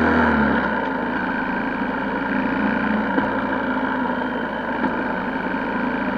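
Honda XR125L single-cylinder four-stroke motorcycle engine running while riding in traffic. Its low note falls away about half a second in, as when the throttle is eased off, and then it runs on steadily.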